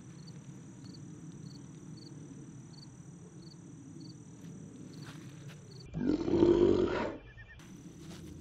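Summer pondside ambience: a steady high insect drone with a short high chirp repeating about twice a second over a low rumble. About six seconds in, a loud rush of noise lasts about a second.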